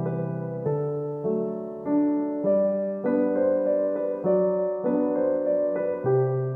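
Background piano music: a soft, slow piece with a new note or chord about every half second.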